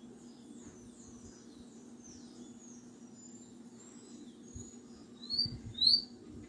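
Caged songbird, a Guyanese 'fire red', singing a run of quick high chirps and sliding whistles that ends in two loud, sharp notes near the end. A low steady hum runs underneath.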